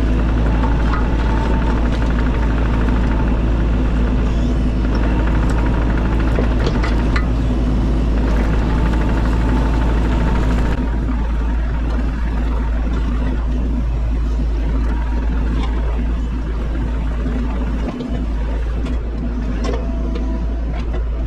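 Bobcat E42 mini excavator's diesel engine running steadily as the machine works, with a few sharp knocks along the way. The sound eases slightly about halfway through.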